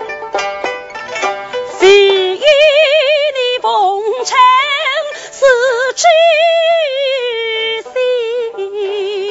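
Female voice singing a Suzhou pingtan tanci aria, with long notes and a wide, wavering vibrato, to her own plucked pipa accompaniment. The pipa plays alone for about the first two seconds before the voice comes in.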